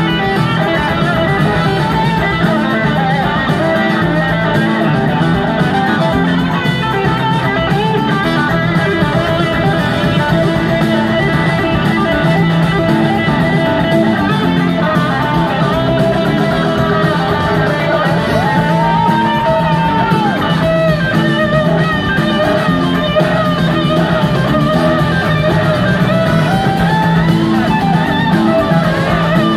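Live rock band playing, two electric guitars over drums, with a held high guitar note that slides up and back down about two-thirds of the way through.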